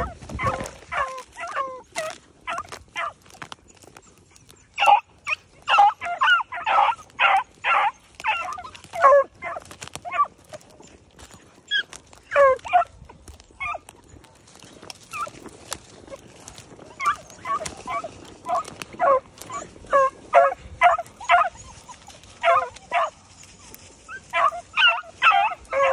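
Beagles baying as they run a rabbit: many short, high hound barks and bawls in quick runs, with two brief lulls, about 4 seconds and about 15 seconds in.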